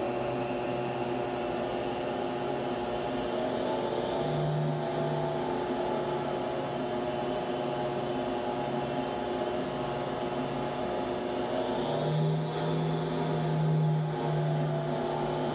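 Homemade flow bench running, drawing air through a 7.3 IDI diesel cylinder head: a steady motor whine over a low hum. The hum swells about four seconds in and again, louder, from about twelve to fifteen seconds in, as the bench adjusts itself to hold 28 inches of test depression.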